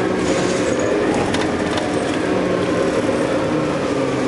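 New Flyer C40LF CNG city bus with a Detroit Diesel Series 50G natural-gas engine, heard from inside the cabin while riding: a steady engine drone with road noise. A few light rattles about a second and a half in.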